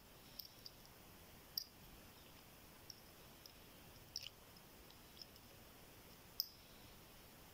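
Faint, irregular small metallic clicks of a flag-style dimple pick working the spring-loaded pins of a 10-pin GLK euro dimple lock cylinder under tension. Two sharper clicks stand out, one about a second and a half in and one near the end.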